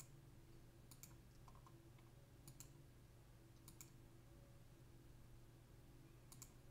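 About five faint computer mouse clicks, spaced irregularly, over a low steady hum.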